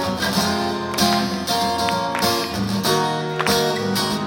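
Two acoustic guitars strumming chords in a live band performance, between sung lines of the song.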